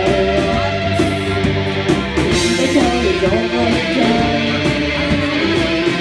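Rock band playing live: electric guitar lines over bass and drums, in a passage without singing.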